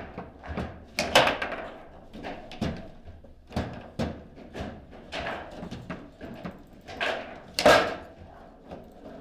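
Table football play: the ball and the plastic players on the steel rods clacking and knocking at irregular intervals, with the two loudest hard strikes about a second in and about three-quarters of the way through.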